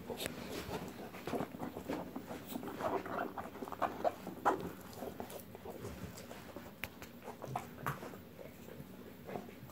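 Rottweiler chewing and mouthing a football to get a treat out of it: a busy run of short clicks and scrapes of teeth on the ball, thinning out after about five seconds.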